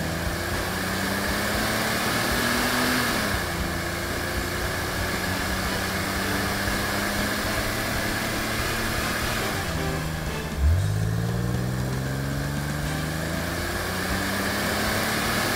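Car engine running and accelerating, its pitch climbing in long rising sweeps again and again, with a sharp fresh rev-up about eleven seconds in.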